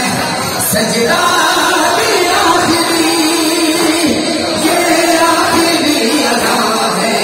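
A crowd of men chanting a noha together in one melodic line, a Shia mourning elegy, with hands beating on bare chests in matam.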